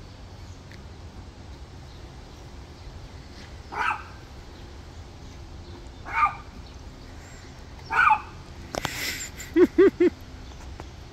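Small dog barking: three short, high yips about two seconds apart, then a brief hiss and three quick, louder barks in a row near the end.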